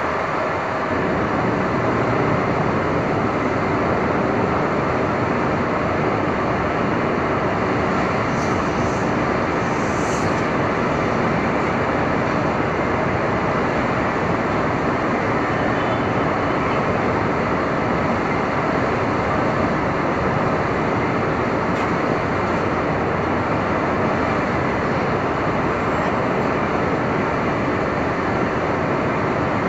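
Steady, dense city street ambience of traffic in stormy weather, an even wash of noise with no single event standing out.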